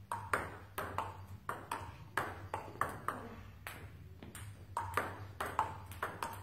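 Table tennis ball knocked back and forth, clicking off the bats and bouncing on the table, about three knocks a second with a brief pause around four seconds in.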